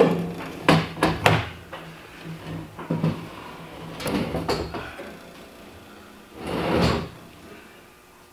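Plastic gray water tank and its metal strap hangers knocking and scraping as the tank is shifted and pushed up under a travel trailer: several sharp clunks in the first few seconds, then a longer scraping rush about six and a half seconds in.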